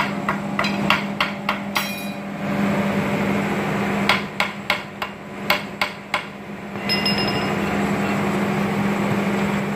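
Hammer blows ringing on a long steel bar set into the axle housing of a JCB 3CX backhoe loader, about three strikes a second: a run of about six in the first two seconds, then a second run of about eight around four to six seconds in.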